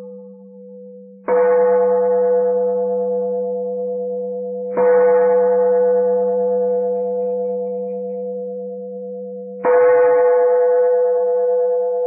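Buddhist temple bell struck three times a few seconds apart, each strike ringing on with a steady tone and slowly fading, over a steady low hum. Three bell strikes like these open a sutra recitation.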